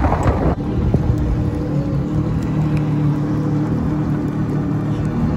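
Wind noise on the microphone for about half a second, then a jet ski engine idling steadily with an even low hum.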